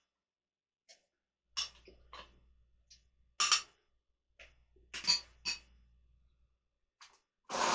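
A few sharp clinks and knocks as a glass blender jar full of squash purée is handled and seated on its base, over a faint low hum. Just before the end the blender motor switches on with a sudden loud whir.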